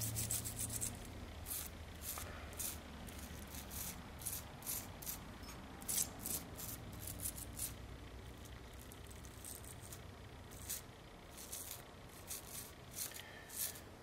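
Quiet, irregular scratchy strokes of a toothbrush scrubbing a small plastic switch gear, cleaning the old gear grease off with isopropyl alcohol.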